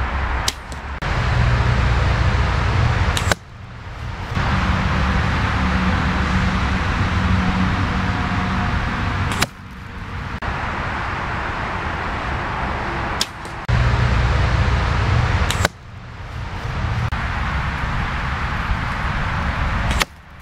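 Arrows from a compound bow striking a foam block target: about five sharp thwacks a few seconds apart, over a steady low rumble.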